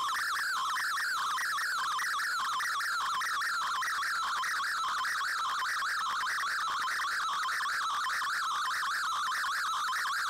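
Shortwave digital picture transmission, an MFSK image sent by Shortwave Radiogram on 15770 kHz, heard through an Icom IC-R8600 receiver. It is a continuous, rapidly warbling tone that flutters up and down as the image data comes in, over faint shortwave hiss.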